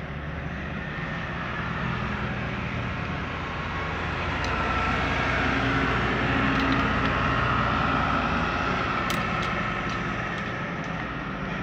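A motor vehicle's engine running nearby, growing louder toward the middle and then fading, as if passing slowly, with a few faint clicks.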